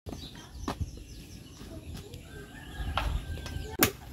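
Leucaena (lamtoro) branches snapping as they are pulled down and broken off by hand, a few sharp cracks with the loudest near the end, over faint bird calls.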